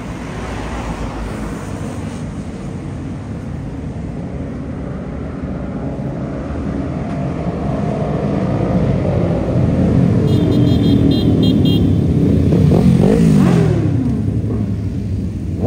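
A convoy of sport motorcycles riding past, engine noise building as the group approaches and loudest about two-thirds through, with engine pitch falling as bikes go by. A brief run of high, evenly spaced beeps about ten seconds in.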